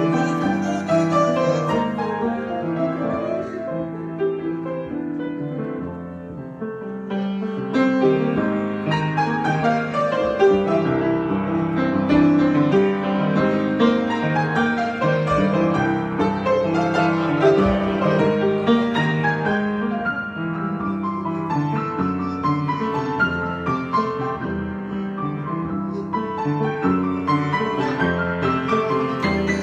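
Solo piano improvisation: many-note chords and flowing lines that ease off to a softer passage a few seconds in, then swell back to a fuller sound about seven seconds in.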